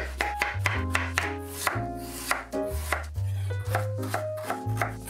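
Chef's knife chopping zucchini and onion on a wooden cutting board, quick repeated strokes, with background music underneath.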